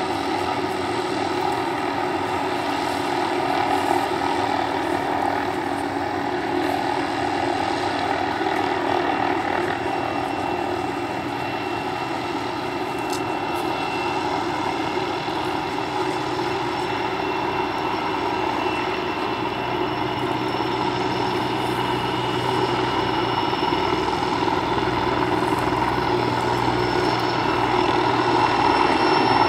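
Helicopters in flight: a Sikorsky Skycrane heavy-lift helicopter with a small helicopter alongside, a steady drone of turbine engines and rotors that grows louder near the end.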